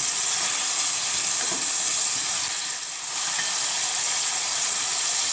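Chopped vegetables (spring onion, tomato, bell pepper) sizzling steadily as they fry in melted butter, an even high hiss.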